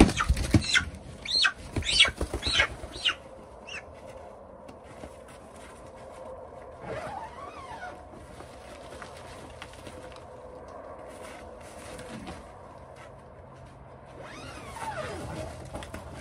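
Footsteps crunching in snow, a sharp step about every half second for the first few seconds, then a quiet outdoor background with two faint drawn-out sounds that rise and fall in pitch, about seven seconds in and near the end.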